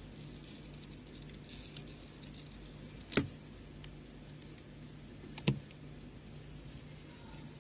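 Scissors snipping the excess nylon fishing line: two sharp snips a little over two seconds apart, among faint ticks of beads and line being handled.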